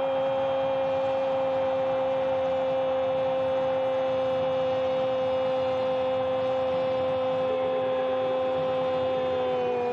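Football commentator's drawn-out 'gooool' goal cry: one long held note at a steady pitch, sagging slightly near the end, over faint stadium crowd noise.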